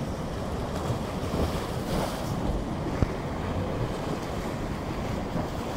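Small sea waves washing and splashing over a low concrete ledge at the water's edge, with wind rumbling on the microphone. A single sharp tap about three seconds in.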